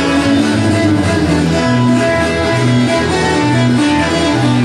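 Guitar-led music with a bass line stepping from note to note, playing steadily.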